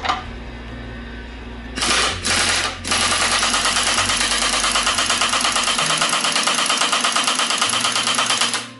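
Large truck-size pneumatic impact wrench hammering on a nut on an excavator's hydraulic cylinder rod: two short bursts about two seconds in, then a long run of rapid hammering that cuts off suddenly near the end.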